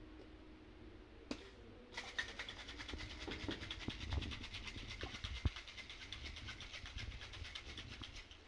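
Ice rattling in a cocktail shaker as it is shaken hard and fast, a steady rapid clatter that starts about two seconds in and stops just before the end.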